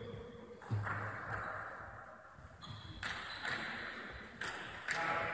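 Table tennis ball being struck and bouncing on bats and table: about six sharp clicks, some in quick pairs, echoing in a large sports hall.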